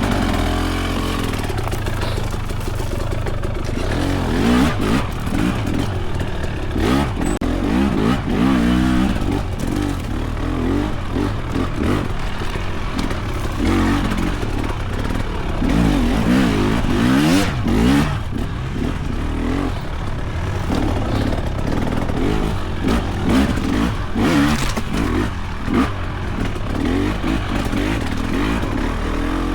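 Husqvarna TX300's two-stroke engine lugging at low revs and revving up and down in repeated throttle surges as the dirt bike climbs over rough ground, with occasional sharp clacks of rock or chassis.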